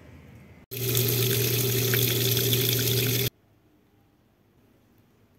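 Water running hard and steadily, with a low hum under it; it starts abruptly about a second in and cuts off suddenly a little after three seconds.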